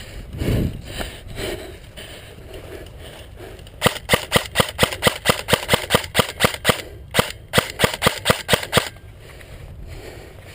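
Airsoft electric M4 rifle firing a rapid string of semi-automatic shots, about five a second, each a sharp snap close to the microphone. A brief pause splits the string in two. The shots start about four seconds in and stop a couple of seconds before the end.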